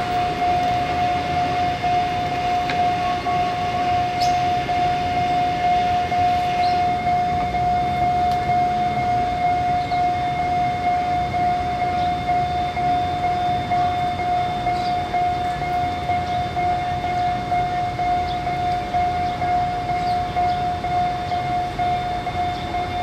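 Level-crossing warning alarm sounding one continuous electronic tone without a break, warning that a train is approaching the crossing, over a low rumble of road traffic.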